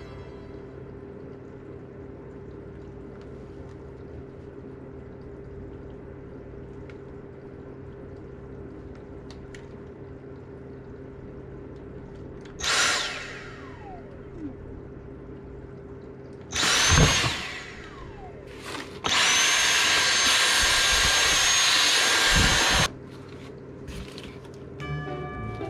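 A small electric motor run in short bursts, its whine rising as it spins up, ending with a steady run of about four seconds.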